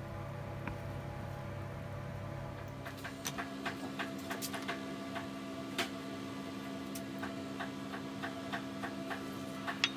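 A steady mechanical hum whose low tone shifts about three seconds in, followed by irregular light ticks and clicks.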